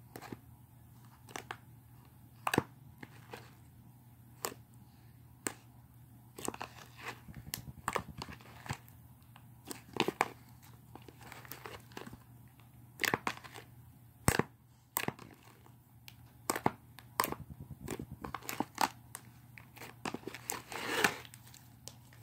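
Slime being mixed and squished by hand: irregular sticky pops and clicks, sometimes in quick clusters, with a longer crackling stretch near the end.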